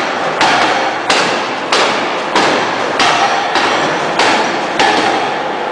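Open-die forging hammer striking a red-hot steel shaft in a steady rhythm, a little under two heavy blows a second, each with a short metallic ring. The blows stop near the end.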